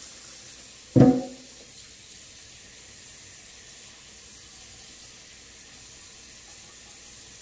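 A kitchen faucet running steadily into a sink. About a second in there is one loud clank with a short ring.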